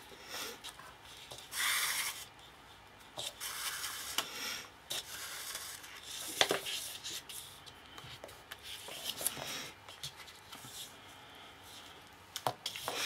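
Cardstock rustling and sliding under a hand while thread is drawn through its punched holes: several short scratchy swishes and a few light taps.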